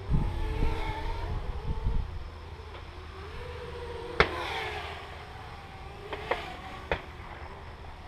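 Blade 200QX quadcopter's motors and propellers buzzing in flight, the pitch wavering up and down as it manoeuvres. Wind buffets the microphone with a low rumble in the first two seconds, and a few sharp clicks come through in the second half.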